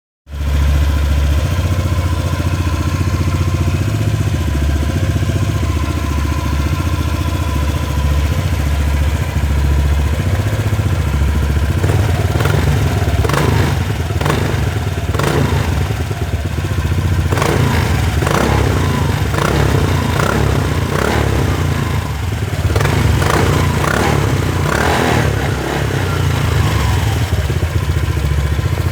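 Honda PCX150's single-cylinder engine running through a newly installed aftermarket exhaust, with a steady, deep exhaust note. In the second half, a run of short, sharp noises sounds over it.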